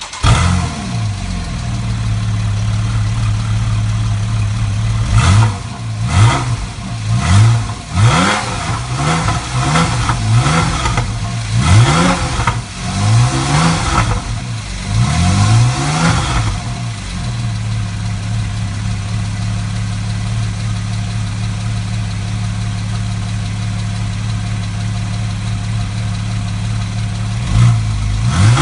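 Porsche 911 Carrera S (991) flat-six engine and exhaust, idling steadily, then blipped about a dozen times in quick succession for around ten seconds. The exhaust pops and crackles as the revs fall. It settles back to a steady idle, with one more short rev near the end.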